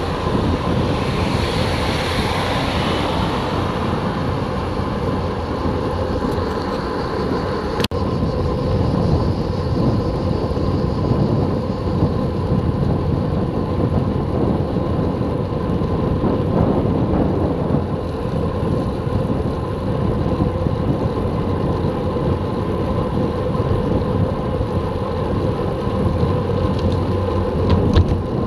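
Steady wind rush buffeting the microphone of a camera riding on a moving road bicycle, a continuous low rumble and hiss.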